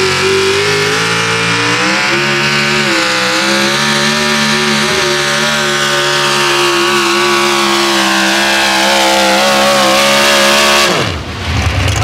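Supercharged engine of a 4x4 pulling truck at full throttle, revs climbing over the first two seconds and then held high with small wavers as it drags the weight sled. About eleven seconds in the throttle is shut at the end of the pull: the pitch falls steeply and the engine drops to a low, rough rumble.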